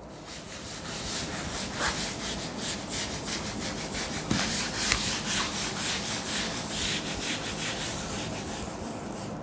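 Quick, repeated scratching and rubbing strokes of a writing tool moving across a writing surface, going on throughout.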